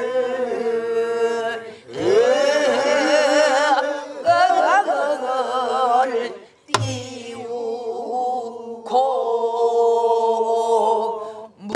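A group singing a Namdo folk song (Southern Korean minyo) together, led by a woman's voice with a wide, wavering vibrato on long held notes, pausing for breath twice. A buk barrel drum is struck with a stick once about two-thirds of the way through and again at the very end, marking the rhythmic cycle.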